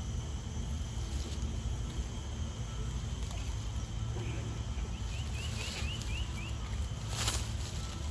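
Outdoor ambience: a steady low rumble, with a quick run of about six short rising chirps from a bird about five seconds in, and a brief rustle near the end.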